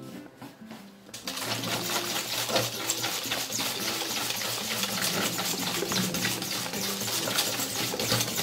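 Wire whisk beaten fast around a stainless steel bowl, whisking an egg and sugar mixture: a rapid clattering scrape of metal on metal that starts about a second in.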